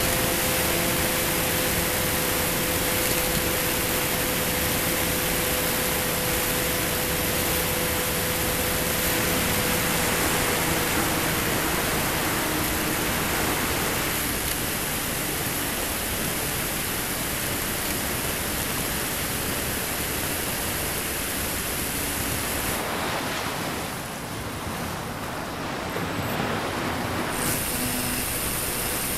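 Wind rushing over the onboard camera's microphone of a flying radio-controlled model plane, a steady hiss, with the faint steady hum of its motor and propeller that fades away about halfway through. A few seconds from the end the hiss turns briefly duller.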